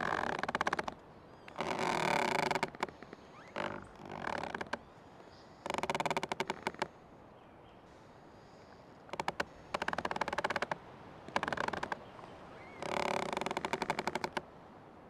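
Old tree creaking in the forest: a run of drawn-out creaks, each about a second long and made of rapid ticks, with short quiet gaps between them.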